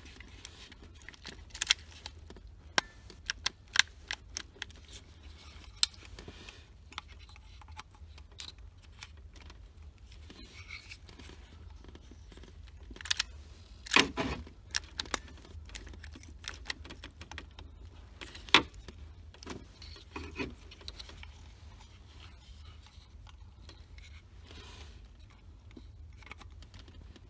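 Scattered clicks, taps and rattles of hand work on a car's ignition lock cylinder assembly and its plastic wiring connectors, with a key ring jangling. A couple of sharper clacks come about halfway through.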